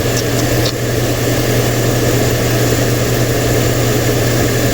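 2012 Chevy Silverado's 5.3-litre V8 idling steadily while it draws in an intake-cleaning induction service.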